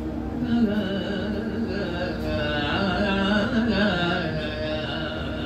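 A man singing a Yakshagana verse (padya) in long, wavering held notes, starting about half a second in, over a steady low hum.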